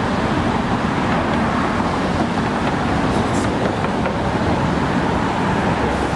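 Steady hum of road traffic from the bridge's car lanes, with faint chatter of passing people.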